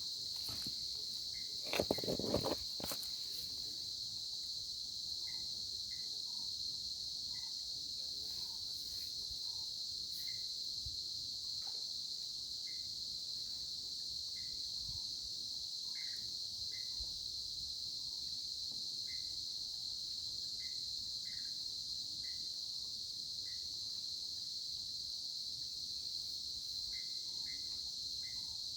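A steady high-pitched insect chorus drones without a break, with short faint chirps coming every second or so. About two seconds in there is a brief, louder rustling burst.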